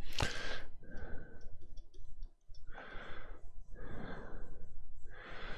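A person breathing close to the microphone: several soft breaths about a second apart, with a few light clicks between them.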